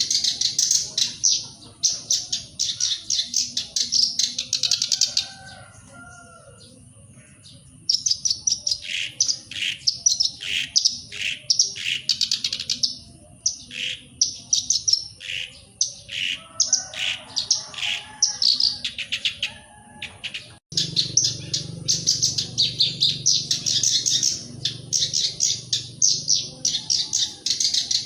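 Black-browed reed warbler singing: long runs of rapid, high-pitched chirping notes, with a pause of a few seconds about five seconds in.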